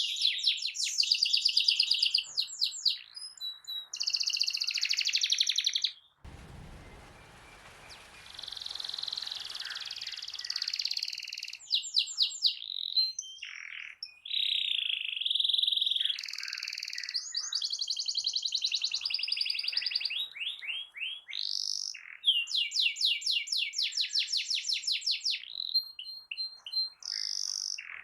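Domestic canary singing a long song of fast rolling trills and high chirps in quickly changing phrases. About six seconds in, a low rushing background noise comes in under softer song for a couple of seconds.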